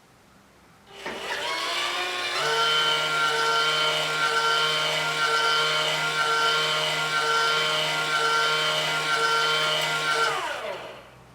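Skywalker coffee roaster's electric motor spinning up with a rising whine, running at a steady speed, then winding down with falling pitch near the end.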